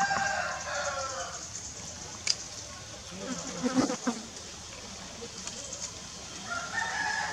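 Insects buzzing steadily in the background, with short voice-like sounds near the start, about three and a half seconds in and near the end, and a single sharp click a little after two seconds.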